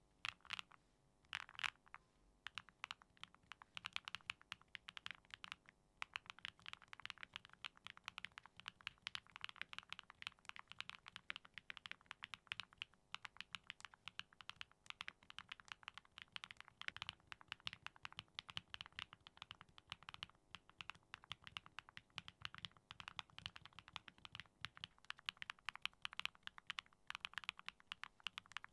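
Typing on a Neo65 CU custom 65% mechanical keyboard with a copper base: a few separate keystrokes, then a fast, continuous run of key clicks from about two seconds in.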